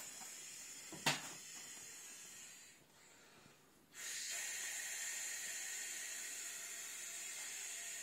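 A person blowing air by mouth into the valve of a vinyl inflatable tiger pool toy, heard as a steady breathy hiss. There is a sharp click about a second in, a short pause near the middle, then the blowing resumes.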